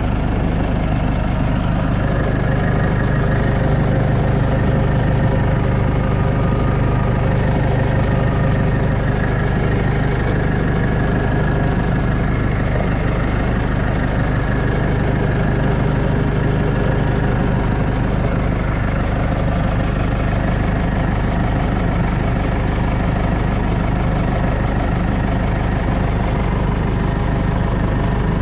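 Snowplow vehicle's engine running steadily at an even speed, with no change in pitch or level.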